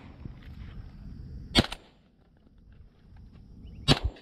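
Two shotgun shots about two seconds apart, each a sharp report, with a faint insect buzz in the background.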